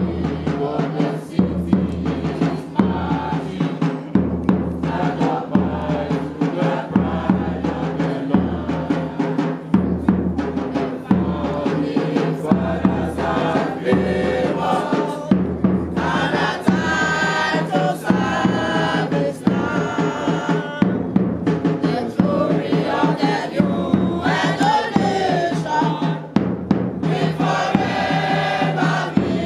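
A group of voices singing a song to a steady drum beat, the singing loudest in the second half.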